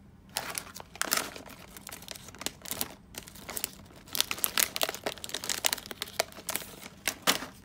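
Plastic potato-chip bag and the small foil card packet with it crinkling and crackling as they are handled and pulled open, the sharp crackles coming thickest in the second half.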